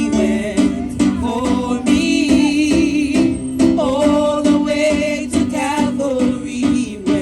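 Gospel song: singing voices over guitar and other instruments, with a steady rhythm.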